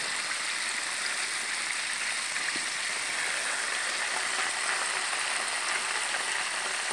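Chicken legs deep-frying in a pot of hot oil: a steady sizzle of bubbling oil.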